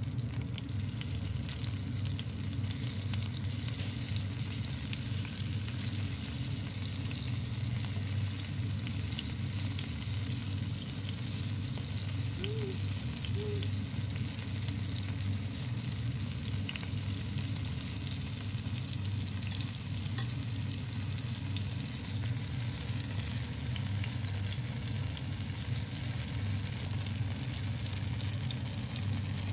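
Battered apple slices sizzling and crackling steadily as they shallow-fry in hot oil in a nonstick pan, with a fork and spatula now and then scraping and turning them. A steady low hum runs underneath.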